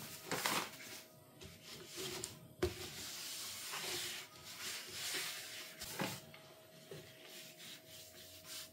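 A hand sweeping and rubbing flour across a plastic chopping board, soft swishing strokes, with one sharp knock about two and a half seconds in as the paper flour bag is set down on the counter.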